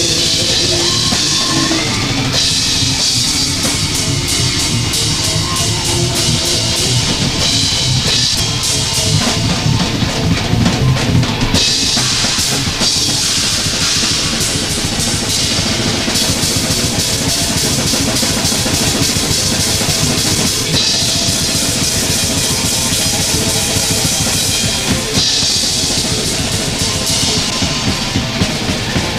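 Live improvised metal jam: a drum kit played hard and fast, with a rapid bass drum and snare under crash cymbals that wash in and out every few seconds, in a dense band sound.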